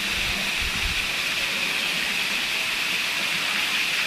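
Steady rush of water from a pool fountain jet spraying and splashing into a shallow pool, with some low rumbles in the first second.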